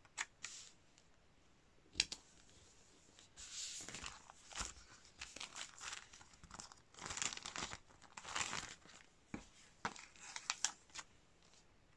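Brown kraft paper bags rustling and crinkling as they are handled and shuffled, in irregular bursts, with a sharp tap about two seconds in.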